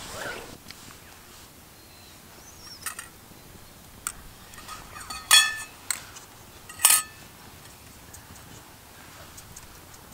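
Metal utensils clinking against metal cookware while soup is ladled from a pot into bowls: a few light taps, then two loud ringing clinks about a second and a half apart.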